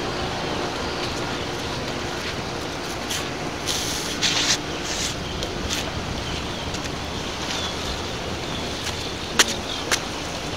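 Wind on the microphone over choppy inlet water washing against the rocks, with a few brief rushes of hiss in the middle and two sharp clicks half a second apart near the end.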